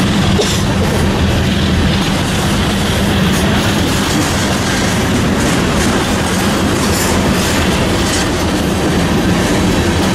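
Freight train of tank cars rolling past at close range: a steady loud rumble of steel wheels on the rails with clickety-clack and irregular short, sharp high-pitched clicks and squeaks.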